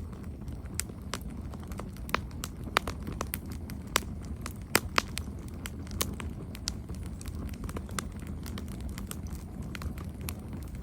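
Campfire burning, with irregular sharp crackles and pops from the wood over a steady low rumble of the flames.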